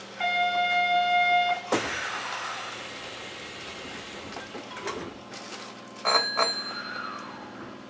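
A train's door-closing buzzer sounds steadily for about a second and a half. The doors then shut with a sudden thud and a fading hiss of air. About four seconds later there is a second short burst of clicks and tones, over the standing train's low steady hum.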